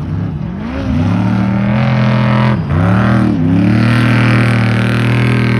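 Off-road race truck engine running hard at speed: the revs climb about a second in, drop briefly twice as the throttle lifts or a gear changes, then hold high and loud.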